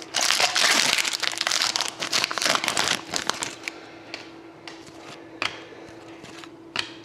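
Crinkling of a foil trading-card pack wrapper being opened and handled, dense for the first three seconds, then a few lighter rustles and clicks.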